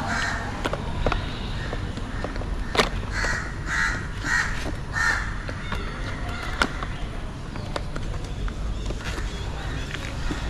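A crow cawing, a quick run of harsh calls about three to five seconds in, with a few sharp light clicks scattered through.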